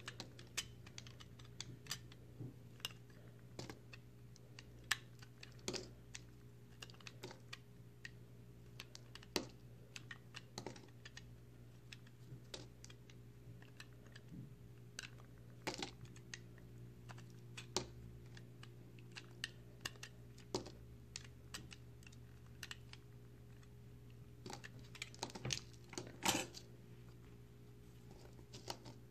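Dry, crumbly recycled soap being shaved and cut with a utility knife blade, giving irregular crisp crunches and snaps as pieces break away. A steady low hum runs underneath.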